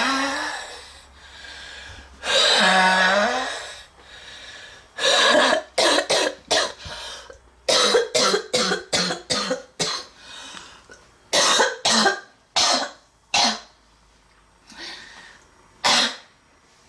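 A girl in a coughing fit. Two long, strained breaths in with a wheezing pitch are followed by runs of rapid, harsh coughs, first in quick clusters and then spacing out into single coughs near the end. The uploader takes it for the sound of badly congested lungs.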